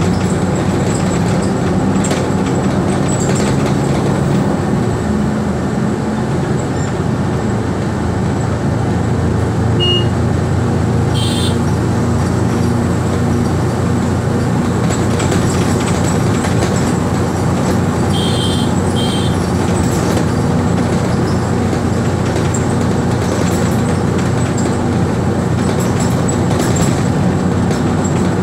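Steady engine drone and road rumble of a moving bus, heard from inside the cabin. Short high beeps cut through twice, once a little after ten seconds in and as a quick pair about eighteen seconds in.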